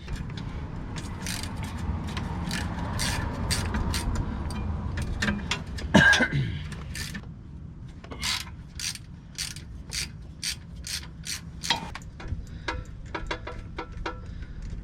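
Hand ratchet clicking in short strokes as it backs out the oil pan riser bolts, about two clicks a second, with one sharp metallic clank about six seconds in; near the end the clicking gets quicker and fainter as the ratchet is spun.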